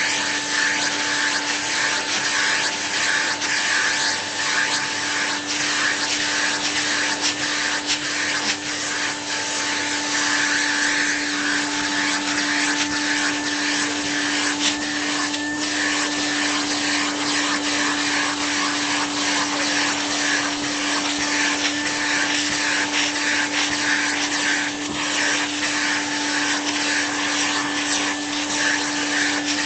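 Vacuum cleaner running continuously as it is worked over a cat's fur: a steady motor hum and high whine over rushing air, with small dips and swells in level as the suction is moved about.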